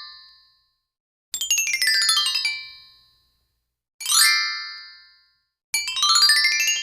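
Short, bright chime-like sound effects, one after another: a run of rapid tinkling bell tones about a second in, a quick falling sweep of bell tones at about four seconds, and another tinkling run near the end, each fading out over about a second.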